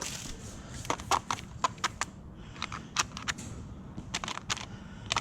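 Window tint film crackling and clicking as it is handled and trimmed on the car's door glass: a short hiss at the start, then a string of irregular sharp ticks.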